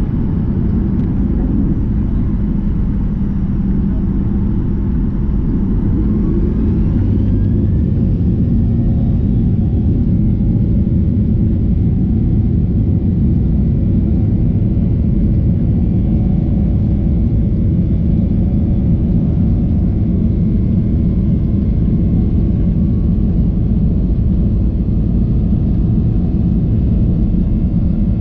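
Cabin noise of a Boeing 737-900ER: a steady low rumble of its jet engines and airflow, with a faint whine rising in pitch about five seconds in.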